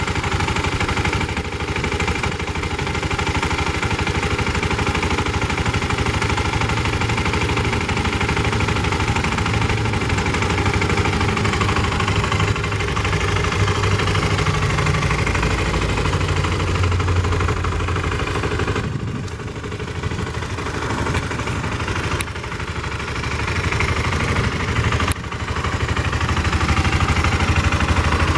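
A BMW F650CS's single-cylinder engine idling through its stock exhaust, a little louder near the end.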